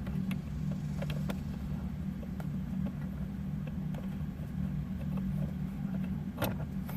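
Small scattered clicks and taps of a Phillips screwdriver working a screw out of the dashboard, with one sharper click about six and a half seconds in, over a steady low hum.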